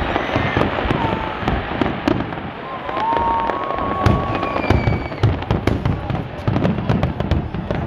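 Fireworks display: aerial shells bursting in a dense run of bangs and crackling, with a whistle-like tone held for about a second near the middle.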